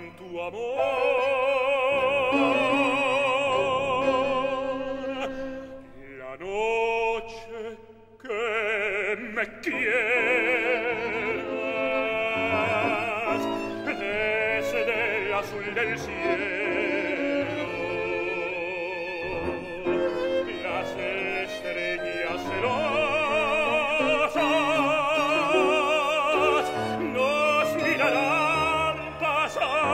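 A tenor singing a tango in full operatic voice with wide vibrato, accompanied by violin and grand piano. The voice breaks off briefly about seven seconds in, then carries on.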